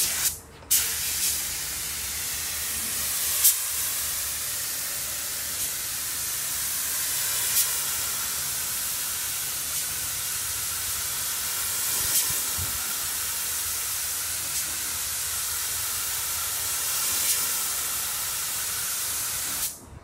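Compressed-air gravity-feed paint spray gun spraying paint onto a car body panel: a steady hiss of air and atomised paint. It breaks off briefly just after the start and stops just before the end, with a few sharp clicks along the way.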